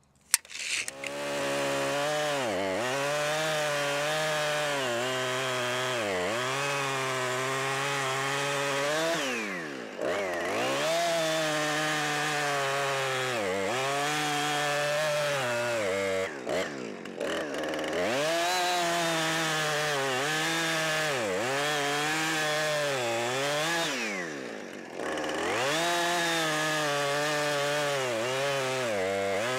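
Husqvarna 455 Rancher two-stroke chainsaw starting to run about a second in, held at high revs while cutting through a log into firewood lengths. The pitch sags each time the chain bites into the wood and then recovers, and three times the revs fall off and climb back again.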